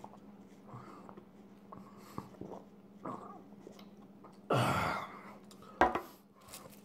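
Drinking from a paper cup with a few soft gulps, then a loud breath out about four and a half seconds in, and a sharp knock near the end as the cup is set down.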